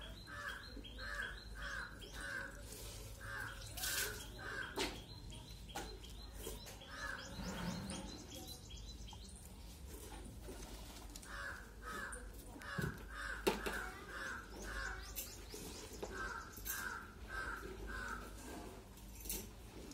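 Crows cawing in runs of short repeated caws, about three a second. The runs come several times, with pauses between them and a few sharp clicks in the gaps.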